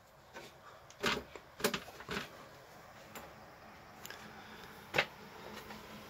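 A few short knocks and clunks as a step ladder is set up and climbed, the loudest about five seconds in, over a faint steady hum.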